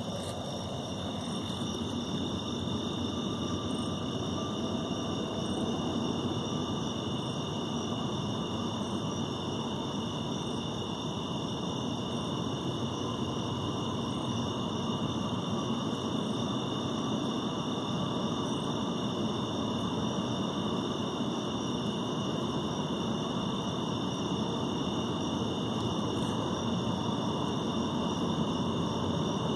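Steady outdoor night noise: a constant whirring hiss, with even high-pitched tones held above it and a faint tick about every second and a half.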